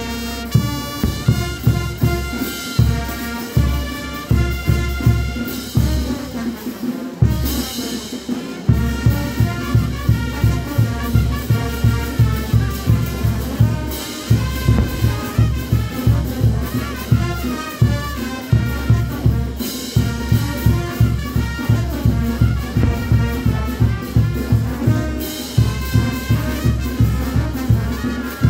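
Brass band music with trumpets and trombones over a steady drum beat.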